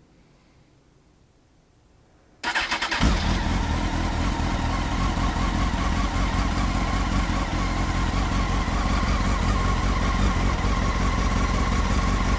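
Honda CBR900RR Fireblade (954) inline-four engine started about two and a half seconds in, catching at once and then idling steadily through its exhaust.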